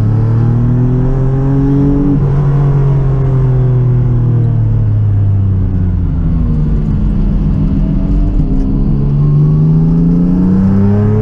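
Rally car engine heard from inside the cabin under load on a twisting stage: revs ease off through the middle, then climb again near the end.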